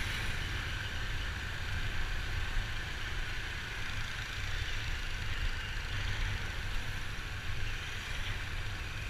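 Steady vehicle riding noise: a continuous low engine and road rumble with a hiss of wind and traffic over it. There are no distinct events.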